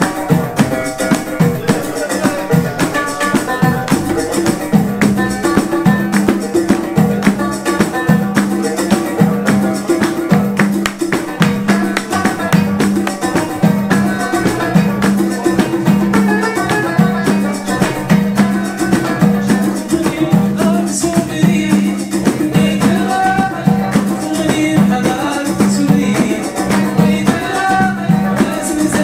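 Instrumental music from a small band: a hand-struck frame drum and rattling percussion keep a fast, even beat under a steady low tone, while a banjo and an electronic keyboard play the melody.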